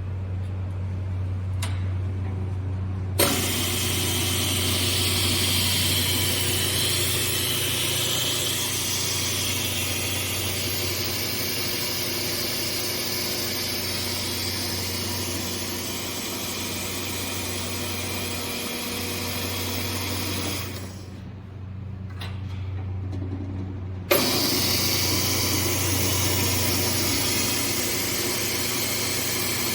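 Ellis Model 4000 miter band saw running with a steady low motor hum. A loud hiss comes on with a click about three seconds in, stops around twenty seconds in, and starts again with a click a few seconds later.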